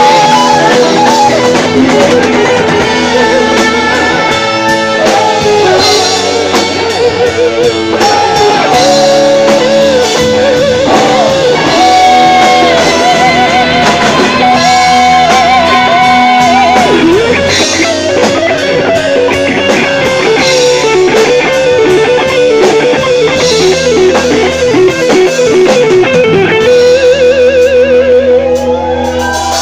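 Live rock band playing loud, led by an electric guitar playing held, bent notes with fast vibrato over steady bass and drums.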